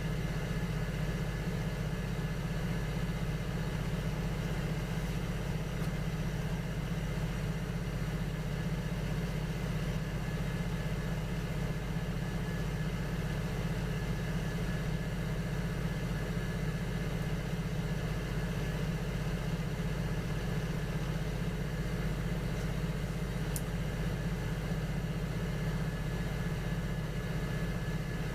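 Electric potter's wheel motor running with a steady, unchanging hum while pots are thrown on it.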